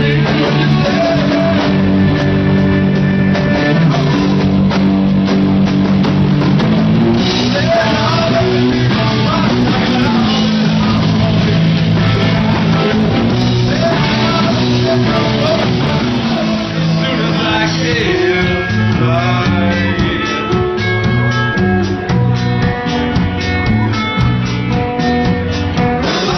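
A live rock band playing loud: electric guitars, bass and a drum kit with singing. The band moves into the next song in the last part.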